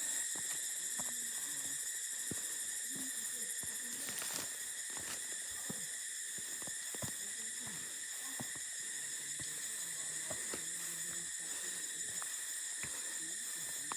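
Steady, high-pitched insect chorus, a continuous shrill drone, with scattered clicks and knocks over it.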